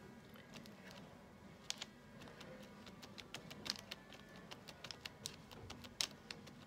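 Palette knife tapping and dabbing cold wax and oil paint onto a painting: a run of small, irregular clicks, the sharpest about six seconds in.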